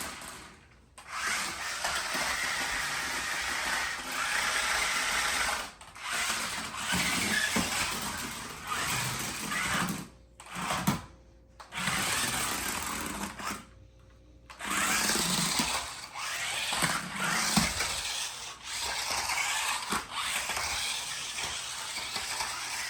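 Small battery-powered RC stunt car's electric drive motors whirring as it drives, running in spurts of a few seconds with brief stops in between.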